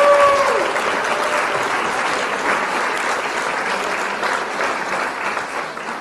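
An audience applauding, with the last held notes of music fading out just at the start. The clapping eases off slowly toward the end.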